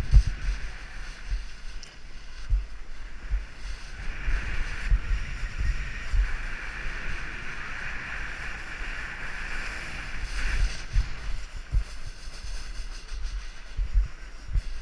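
Snowboard sliding over packed snow with a steady hiss of the base and edges, loudest through the middle of the run, while wind buffets the action camera's microphone in low, gusty rumbles.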